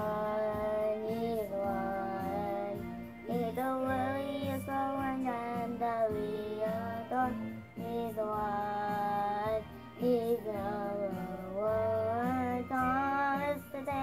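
A young boy singing a song in phrases of long held notes, with short breaks between the phrases.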